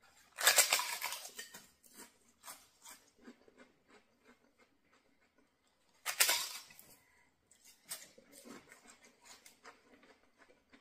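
A person biting into a crisp poppadom twice, about half a second in and again about six seconds in. Each bite is a loud crackling crunch, followed by chewing with many small crunches.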